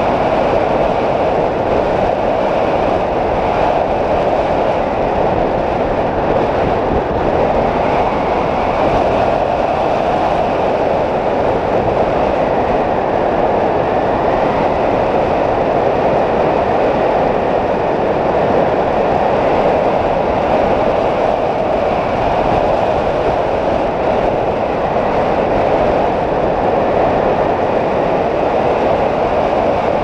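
Steady rush of wind from air flowing past a camera mounted on a hang glider's wing in flight, with a faint wavering whistle above it.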